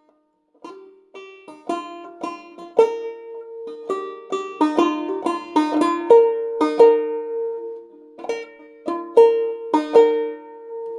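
Five-string banjo played clawhammer style in a sawmill tuning dropped a tone and a half, slowly picking out a phrase note by note. The notes are single plucks with a few struck harder, starting under a second in.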